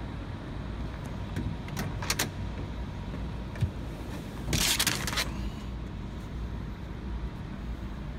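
Handling noise on the handheld camera: a few light clicks and a sharp knock, then a brief scraping rustle about halfway through, over a steady low rumble.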